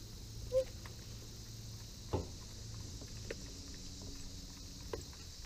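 Light knocks and clicks of gear and feet in a small aluminium fishing boat, the clearest about two seconds in and again near five seconds, after a short squeak about half a second in. A faint low hum runs under them, with a steady drone of insects.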